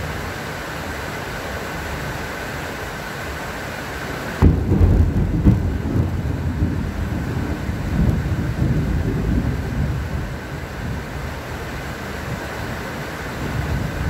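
Steady rain, then a sudden clap of thunder a little over four seconds in that rumbles on for several seconds, swelling again once or twice before dying away.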